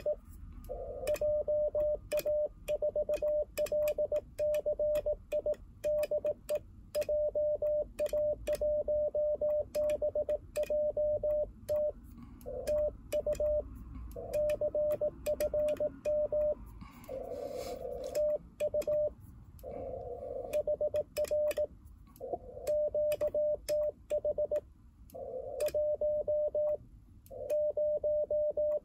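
Morse code sidetone from an Icom IC-705 transceiver: a single steady beep keyed on and off in dots and dashes as a CW reply is sent on a paddle key at about 18 words per minute, with the paddle's contacts clicking over it. It spells out a roger, thanks and confirmation, then the station's QTH number, which is keyed with a mistake.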